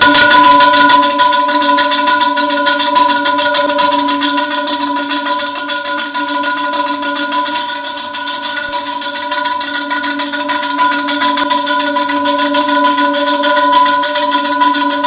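Steel wheel rim ringing at several steady pitches on a lathe under a finishing cut, with a fast, dense scraping rattle from the cutting tool; it starts and stops abruptly.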